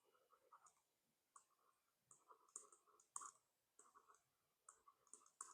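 Near silence with faint, irregular clicks, about one or two a second.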